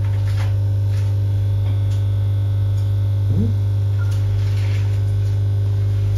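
Coffee maker running with a steady, loud electric hum. About three seconds in, the Shetland sheepdog gives a short rising whine.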